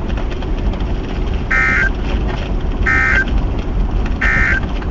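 NOAA Weather Radio broadcast sending the Emergency Alert System end-of-message data: three short, identical, harsh warbling data bursts about a second and a half apart, marking the close of the weekly test. A steady low rumble runs underneath.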